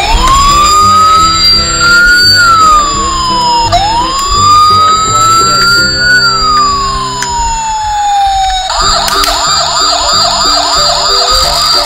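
Electronic police siren from a toy police car: a slow wail rising and falling twice, then switching near the end to a fast yelp of about three or four cycles a second. Faint background music runs under it.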